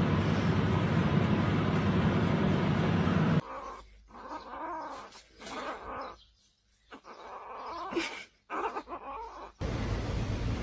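A kitten's cries and growls in short bouts with brief silences between, after a steady noise in the first few seconds.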